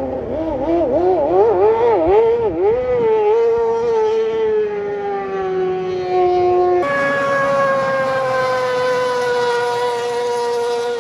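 A vehicle siren wailing: its pitch warbles rapidly up and down for the first few seconds, then settles into a long tone that slowly falls in pitch.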